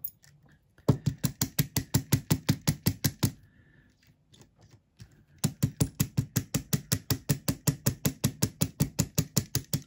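Hair stacker holding a clump of elk hair, tapped rapidly on the tabletop to even up the hair tips. There are two runs of quick, even knocks, about eight a second, with a pause of about two seconds between them.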